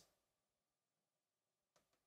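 Near silence, with no sound at all.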